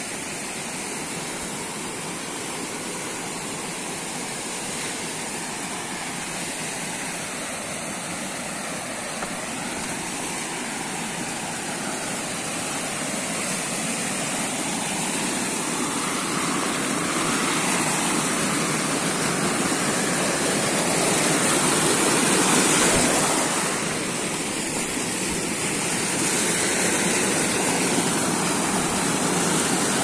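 Mountain stream rushing over rocks and spilling down a small waterfall, a steady roar of water that grows louder as it goes.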